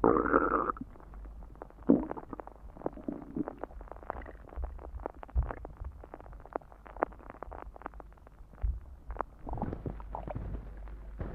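Stomach growling and gurgling after drinking soda: a loud gurgle at the start and another about two seconds in, then many small bubbling pops and clicks, with a few low thumps.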